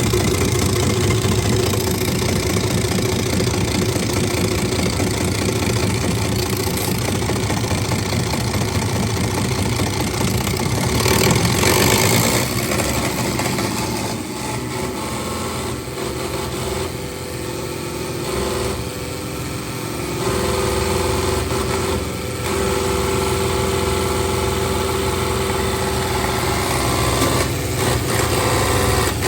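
An engine running steadily, with a louder surge about eleven seconds in and a quieter stretch a few seconds later.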